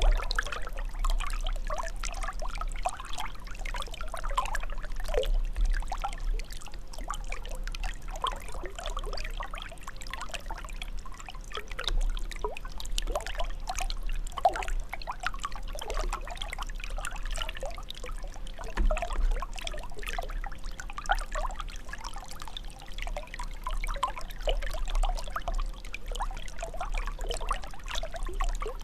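Water trickling and gurgling steadily, a continuous stream of small bubbling splashes over a low rumble.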